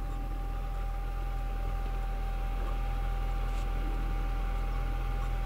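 Steady low engine hum at idle, with a thin steady whine above it.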